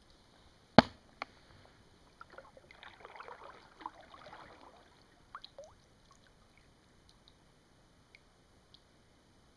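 Kayak paddling on calm water. About a second in there is a sharp knock on the boat, with a lighter one just after. A few seconds of paddle splashing and dripping follow, then a few faint drips.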